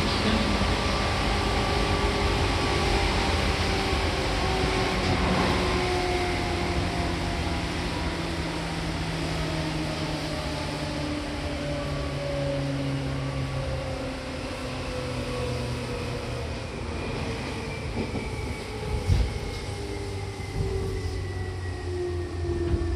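Seibu 2000-series electric train running on the Shinjuku Line, with a steady rumble and a whine that falls slowly in pitch throughout as the train slows. There is one brief knock about 19 seconds in.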